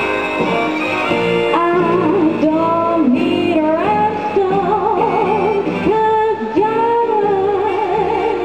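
A woman singing a slow, showy 1950s-style song into a microphone over a backing track, holding long notes with wide vibrato.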